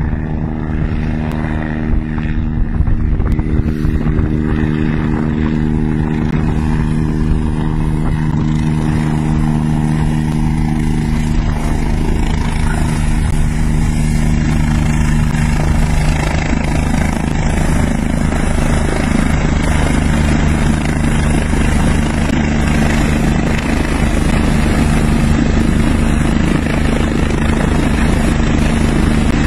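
Eurocopter EC145 helicopter's rotor and turbine engines running steadily as it flies in to a close hover, the hum growing slightly fuller and louder about halfway through.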